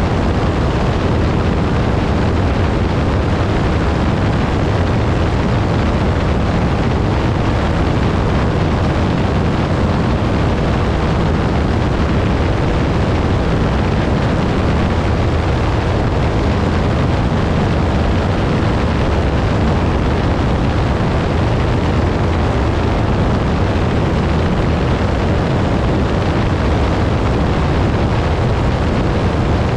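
Piper Pawnee towplane's piston engine and propeller running steadily at high power while towing a glider aloft, heard from the cockpit as a loud, unbroken drone.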